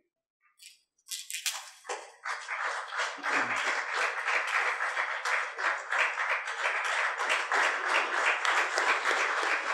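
An audience applauding, many hands clapping together, starting about two seconds in after a brief silence.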